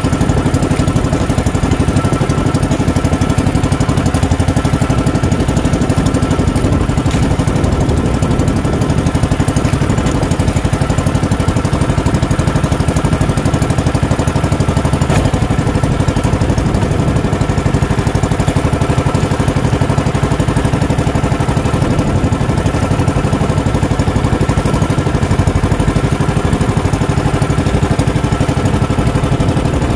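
Small engine of an outrigger fishing boat running steadily at an even speed while the boat trolls.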